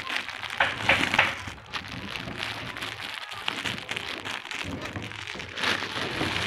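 Clear plastic packets crinkling and rustling as a hand shifts through a stack of packed sarees, with bursts about a second in and again near the end.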